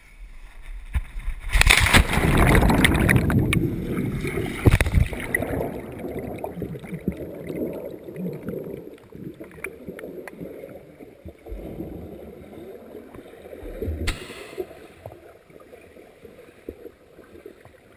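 A loud splash about a second and a half in as the person with the camera plunges into a pool, followed by muffled underwater bubbling and gurgling heard from below the surface. A second, shorter splash comes later.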